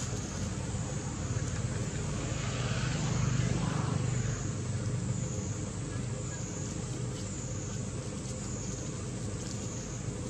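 Steady low rumble with a hiss over it, swelling a little about three seconds in and easing off again.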